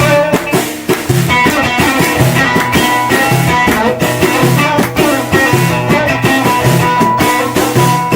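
Instrumental music: plucked string instruments playing over a steady drum beat.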